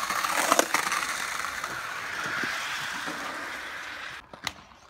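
Skateboard wheels rolling over smooth concrete, a steady rolling hiss with a few sharp clacks about half a second in. The rolling stops about four seconds in, followed by a few sharp clacks.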